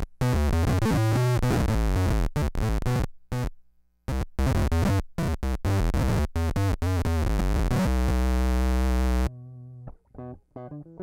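Electric guitar played through an EarthQuaker Devices Bit Commander analog octave synth pedal: a synth-like tone with a deep sub-octave, in short, choppy phrases whose notes cut off abruptly, ending on a held note. About nine seconds in it switches to a much quieter, cleaner picked line.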